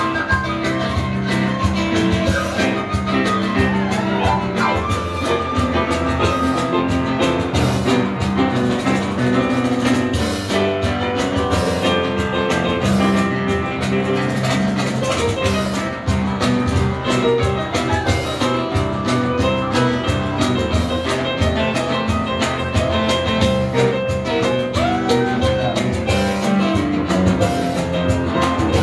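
Live band music: a side-blown bamboo flute melody over keyboard, guitar and drums.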